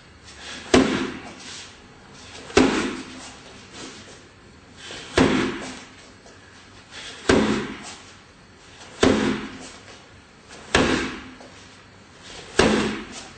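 Front kicks landing on a handheld strike shield: seven sharp smacks, about one every two seconds, each with a short echo.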